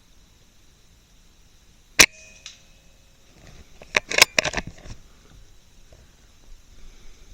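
A single shot from a sub-12 ft-lb air rifle about two seconds in, a sharp crack with a short ringing after it. About two seconds later comes a quick run of sharp clicks and knocks.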